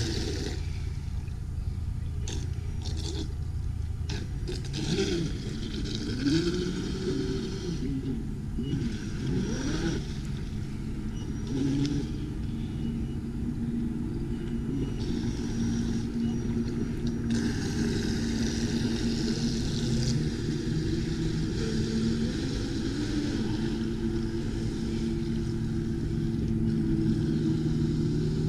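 Traxxas M41 radio-controlled boat's electric motor running, its pitch rising and falling with the throttle over a steady rushing noise.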